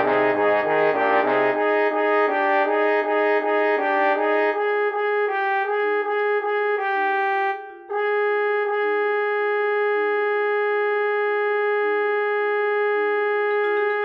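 Computer-rendered orchestral score playback. Repeated full chords slow down as the tempo drops. About eight seconds in they give way to a long held high note over a steadily repeating quick figure in a lower part.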